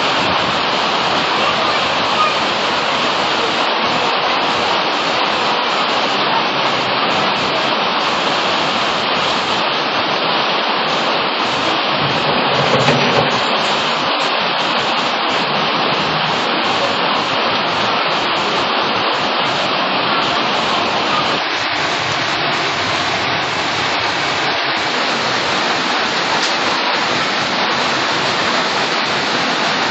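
Rain falling steadily, a dense even hiss, with a heavy vehicle rumbling past about halfway through.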